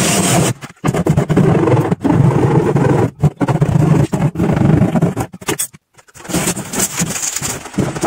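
Cordless drill running with its bit grinding and scraping through wall plaster, heard in several short stretches that cut off and restart abruptly.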